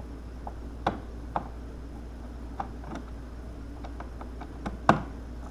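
Screwdriver turning the small screws of a plastic triple switch plate: scattered light clicks and ticks, with two sharper clicks about a second in and the loudest click near the end.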